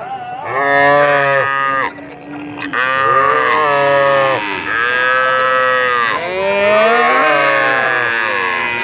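Young cattle mooing: a run of about five drawn-out moos, one after another, each rising and then falling in pitch, with two animals' calls overlapping at times.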